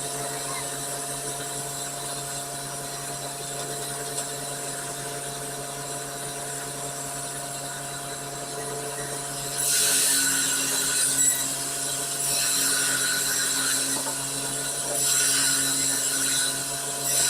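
A motor runs steadily, then a chain saw cuts into wood in three louder bursts of a couple of seconds each, starting about ten, twelve and fifteen seconds in.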